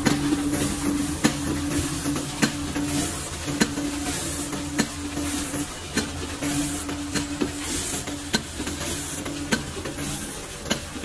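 Aluminium foil container press stamping three-compartment trays, a sharp knock about every 1.2 seconds with each stroke. Under it run a steady hum and repeated bursts of air hiss.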